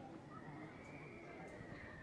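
Faint outdoor ambience: low steady background noise with a faint, drawn-out high tone that rises slightly and falls back over about a second and a half.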